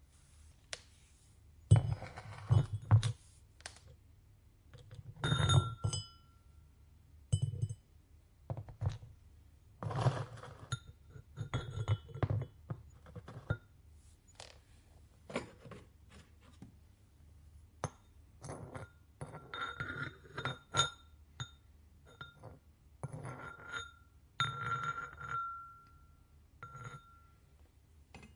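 Irregular knocks and clinks of ceramic ware and tools being handled and set down on a work surface, some clinks ringing briefly.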